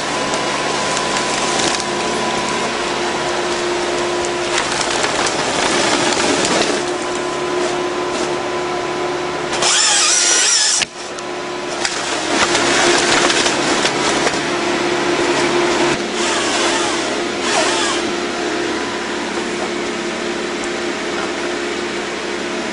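Forestry harvester working: its engine and hydraulics run with a steady hum. About ten seconds in, the harvester head's chain saw cuts through the trunk for about a second and stops sharply, and branches crack and splinter as the stem is fed through the head and delimbed.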